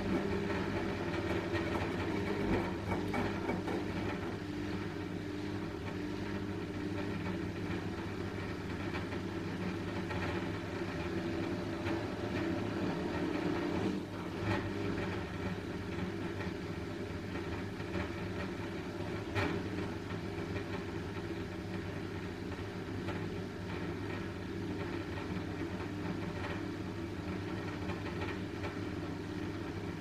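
Front-loading washing machine running: a steady motor and drum hum, with a few light knocks.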